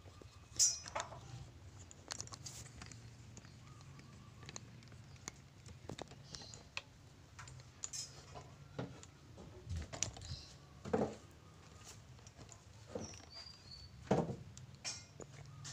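Scattered light knocks, clicks and handling noises of wood and tools being moved about, over a faint steady low hum; the loudest knocks come about half a second in and twice in the second half.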